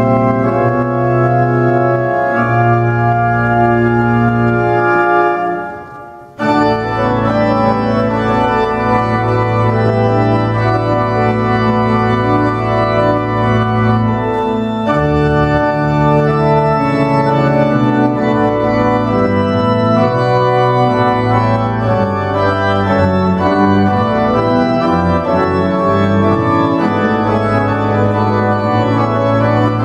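Cathedral pipe organ playing sustained chords that change slowly. It fades and breaks off briefly about six seconds in, then comes back in abruptly and plays on.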